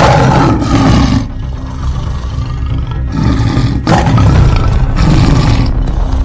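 Tiger roar sound effect, two long roars: one at the start and another from about three seconds in, over background music.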